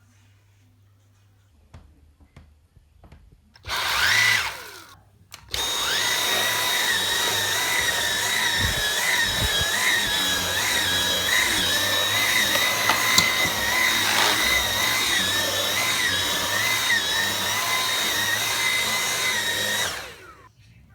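Dyson V8 cordless vacuum's motor switched on briefly about four seconds in and winding down, then started again and running steadily with a high-pitched whine, its pitch wavering slightly as it works, until it cuts off near the end.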